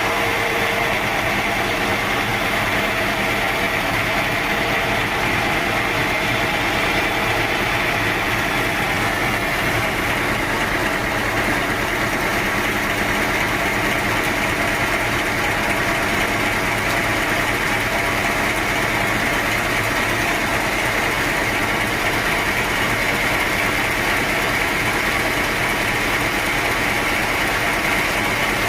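Sawmill machinery running steadily, a loud continuous mechanical noise with no breaks.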